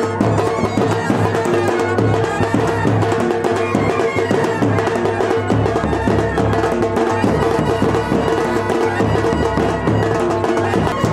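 Loud traditional-style music with steady drumming and a long held note.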